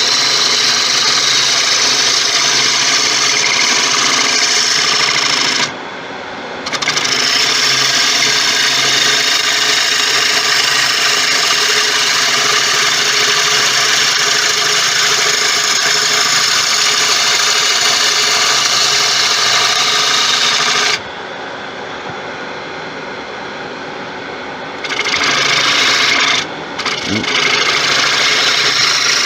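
Bowl gouge taking heavy roughing cuts on a large spinning tiger wood blank on a Laguna 1836 wood lathe: a loud, steady cutting noise over the lathe's running hum. The cutting stops for about a second around six seconds in, and for about four seconds past the twenty-second mark, leaving only the quieter lathe hum each time.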